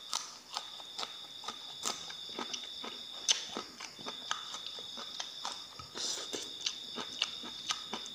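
Close-up crunchy chewing of a raw yardlong bean, with crisp crunches about two a second. A steady high-pitched tone runs underneath.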